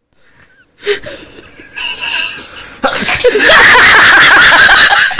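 A person sneezing, a sneeze forced by tissue pushed up the nose: a sudden loud burst just under a second in, rough breaths after it, then loud, prolonged laughing from about three seconds in.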